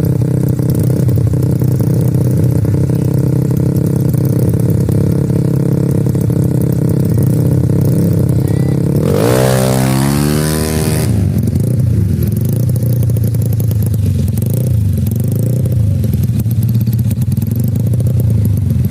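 Racing-tuned Yamaha Mio scooter engine running steadily. About nine seconds in it is revved hard in a quick rising sweep, then it falls back to a steady, slightly wavering note.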